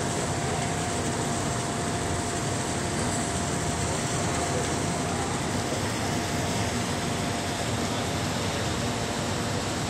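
Steady drone of running machinery with a constant mid-pitched whine over it, unchanging throughout.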